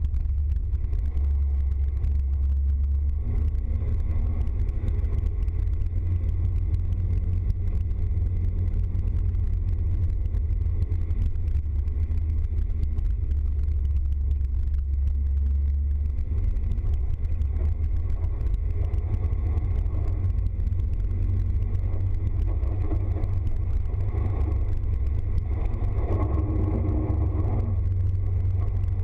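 Engine and tyre noise of a small van heard from inside its cab while driving on a wet road: a steady low drone.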